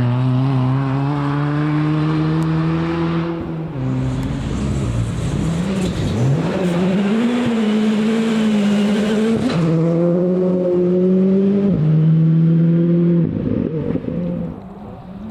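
Rally car engine under full throttle on a stage, climbing in pitch and shifting up through the gears, with pitch drops at three gear changes. There is a loud rush of noise mid-way as it passes, and the engine fades as the car drives away near the end.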